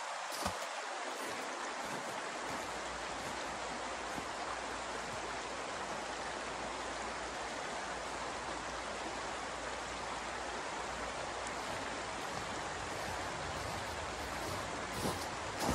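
Steady outdoor rushing noise, like running water, with a light knock just after the start and a few footsteps crunching in snow near the end.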